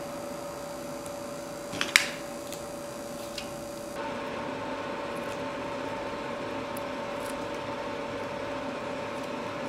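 A steady mechanical hum, like a fan or air conditioner, with a short cluster of sharp clicks about two seconds in and a small tick a little later as strips of double-sided tape are handled on the oak tabletop.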